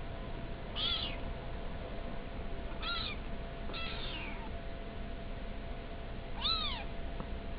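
Young kitten mewing four times in short, high, thin calls, the last one rising and falling in pitch.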